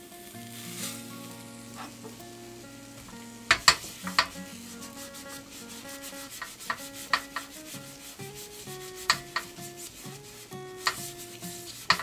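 An oiled paper towel, held in chopsticks, rubbed across a hot nonstick tamagoyaki pan to grease it, with a light sizzle. Several sharp knocks come from the pan, a cluster about three and a half seconds in and a few more near the end.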